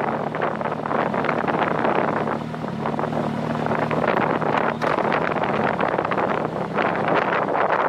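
Wind buffeting the microphone in uneven gusts over a steady low engine hum.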